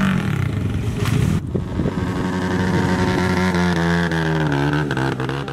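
Dirt bike engine running hard and revving up and down, with an abrupt change in the sound about a second and a half in.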